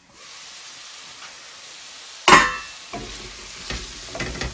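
Onions, carrots and shiitake mushrooms sizzling in a stainless steel sauté pan once its lid comes off. About halfway there is one loud metallic clang of the steel lid being set down. After that a utensil scrapes and knocks against the pan as the vegetables are stirred.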